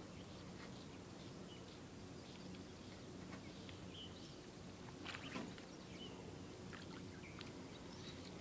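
Faint outdoor ambience: small birds chirping now and then over a steady low hum, with a brief rustle or knock about five seconds in.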